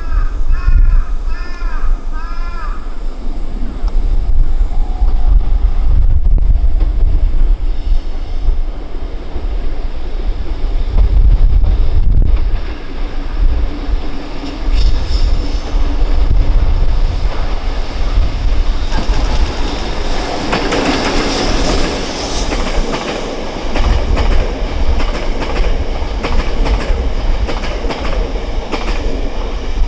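Train running past on the track, wheels clattering over the rail joints; the passing is loudest about twenty seconds in.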